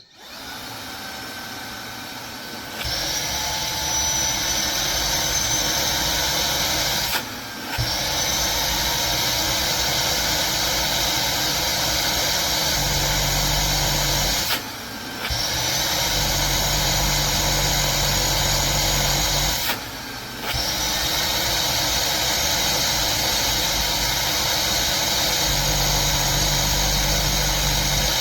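Cordless handheld battery vacuum running, its motor with a steady high whine while its nozzle draws on a steel plate. It steps up louder about three seconds in and dips briefly three times before picking back up.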